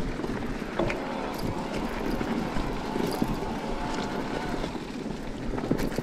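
E-mountain bike rolling fast over a trail of dry fallen leaves: tyres rustling through the leaves and the bike rattling, with a few sharp knocks from bumps and wind on the microphone.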